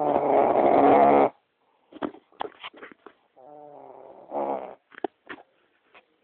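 A person snoring loudly: a long rattling snore at the start, then a string of short puffs and snorts, with a quieter, shorter snore in the middle.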